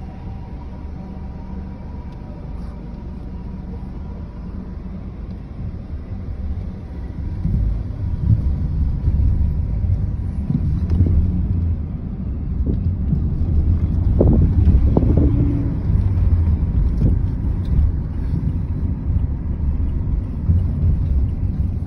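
Rumble of a car in motion heard from the back seat, getting louder about eight seconds in, with a few short swells from the passing traffic.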